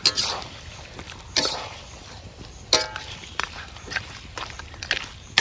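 A metal ladle scraping and knocking against a metal cooking pot as pork pieces are stirred, with four loud strokes about every second and a half and smaller ones between, over a steady low hiss.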